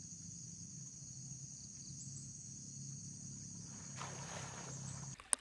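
A steady high-pitched insect drone, like a cicada or cricket chorus, over a low steady rumble, with a short rush of noise about four seconds in. Everything cuts off abruptly with a click near the end.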